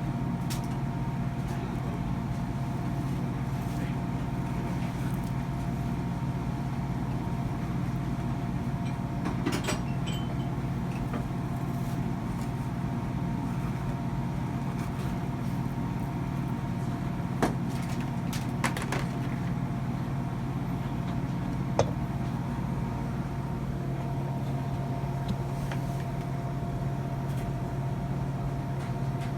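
Steady machine hum with a few sharp clicks.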